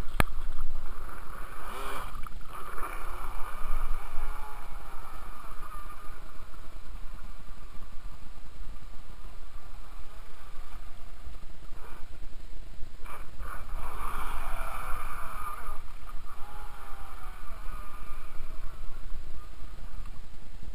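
Radio-controlled speed boat's motor whining as it runs across the water, swelling twice as it passes, with its pitch bending up and down, over a steady low rumble.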